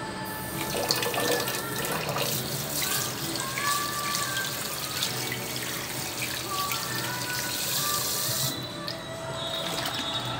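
Kitchen tap running into a stainless-steel sink, splashing over hands and hog casings being rinsed on a cutting board. The water is shut off about eight and a half seconds in.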